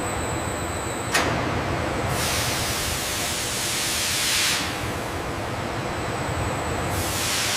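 Steady industrial machinery noise, a dense rumbling hiss with a faint high whine. It steps up about a second in and surges into a louder, brighter hiss for a couple of seconds in the middle.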